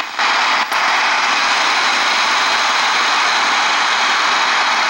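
Degen DE1103 shortwave receiver on 5040 kHz giving out a loud, steady hiss of static from its speaker: electrical noise from the connected laptop getting into the radio, 'much higher' than without it. The hiss drops out briefly twice in the first second.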